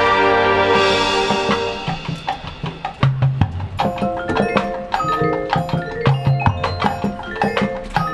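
Marching band brass holding a loud chord that fades out about two seconds in, then the percussion section takes over: rapid sharp clicks and short ringing mallet-keyboard notes over low bass drum hits.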